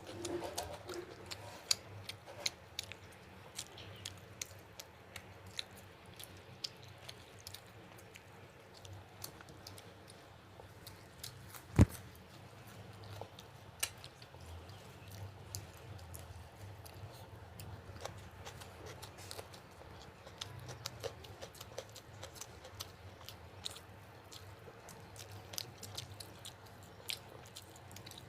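Close-miked chewing and eating of fish curry, with many small wet clicks and mouth sounds, and one sharp knock about twelve seconds in.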